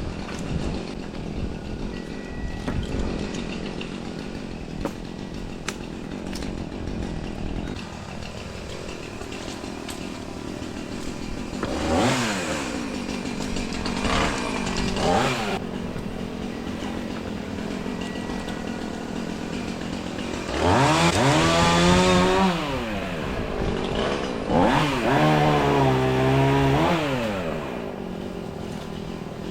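Milwaukee battery-powered top-handle chainsaw run in bursts: two short blips partway through, then two longer runs of a few seconds each near the end. In each run the motor's whine rises as it spins up and falls as it winds down.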